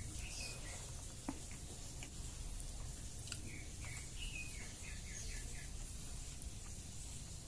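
Small bird chirping in the background, in short falling chirps, with a quick run of four about two-thirds of the way through. A few sharp clicks stand out, and a low hum runs steadily underneath.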